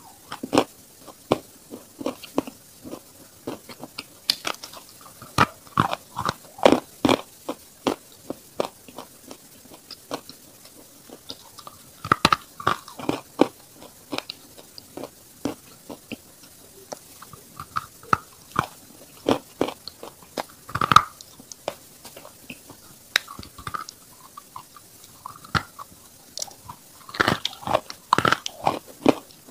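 Close-miked biting and chewing of a dry lump of blue-grey shale: sharp crunches at irregular intervals, each followed by grinding chews. A few bites stand out louder, one a little over two-thirds through and a cluster near the end.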